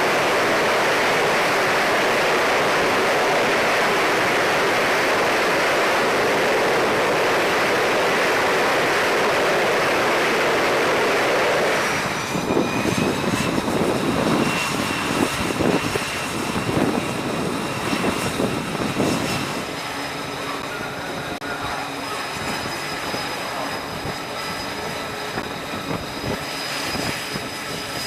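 Aircraft engines running on a carrier flight deck: a loud, steady rush of engine noise that changes abruptly about twelve seconds in to an uneven rumble with a high, steady whine, which grows quieter later on.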